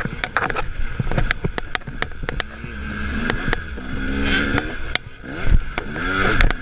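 KTM 300 two-stroke dirt bike engine revving through the gears, its pitch climbing as it accelerates and dropping briefly off the throttle about five seconds in. Repeated sharp knocks sound throughout.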